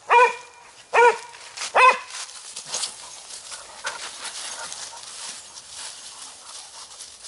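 Spaniel barking three times, about a second apart, then moving through dry fallen leaves, with a scattered crackling rustle.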